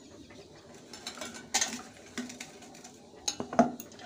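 Chopped onion, garlic, ginger and green chillies dropped by hand into a stainless steel mixer-grinder jar: scattered light clicks and taps of the pieces and fingers against the steel, with a few sharper ones about a second and a half in and near the end.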